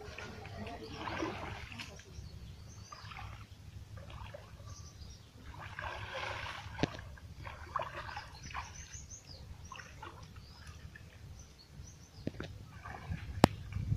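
Shallow water splashing and sloshing in irregular bursts as a man wades and works with his hands in a flooded field, with birds chirping and a steady low rumble. Two sharp clicks, the louder one near the end.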